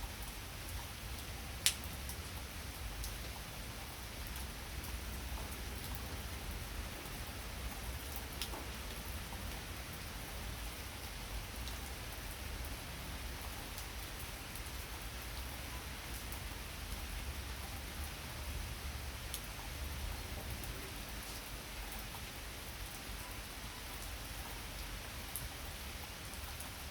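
Heavy rain pouring steadily, an even hiss with scattered sharp drip ticks, one sharper tick about two seconds in.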